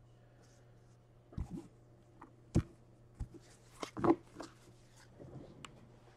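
Handling noise from a stack of trading cards: a few scattered soft taps and clicks, the sharpest about two and a half seconds in, over a low steady hum.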